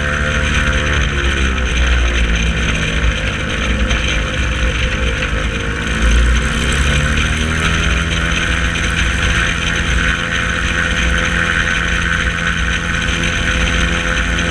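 Piper Lance's piston engine and propeller running steadily. Its tone wavers twice in the first eight seconds, then holds level.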